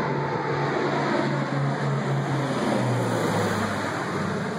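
B-29 Superfortress's four Wright R-3350 radial piston engines and propellers droning as the bomber passes low overhead on its landing approach. The drone drops in pitch about three seconds in as the aircraft goes over.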